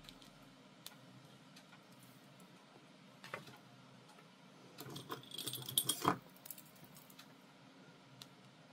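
Loose plastic sequins jingling and clicking as they are picked through by hand, in a short dense flurry about five to six seconds in, with a few single light ticks before and after.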